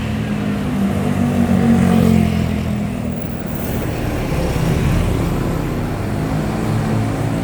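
Large bus's diesel engine running loud and low, swelling about two seconds in.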